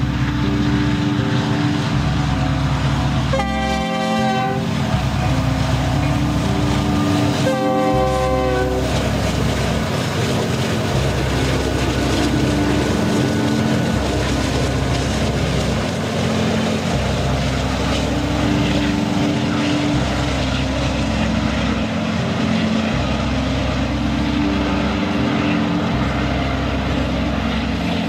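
BNSF freight train's diesel locomotives running past under power with a low throbbing rumble, sounding the horn twice, about four and eight seconds in, each blast a little over a second long. Then loaded coal hopper cars roll by with a steady rumble of wheels on the rails.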